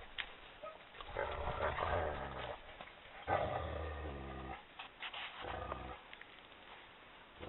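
Maremmano-Abruzzese sheepdog growling: three rough growls, the middle one the longest and loudest, the last one short.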